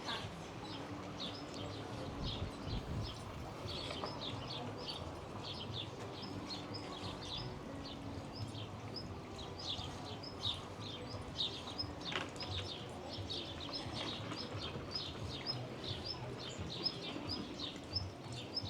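Songbirds chirping, many short high chirps in quick succession all through, over a low steady outdoor background noise.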